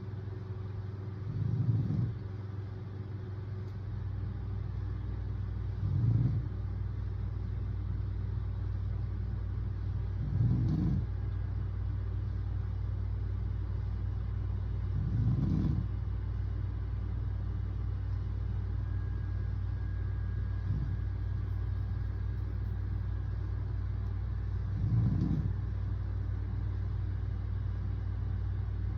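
A man snoring in his sleep, six snores about four and a half seconds apart over a steady low hum.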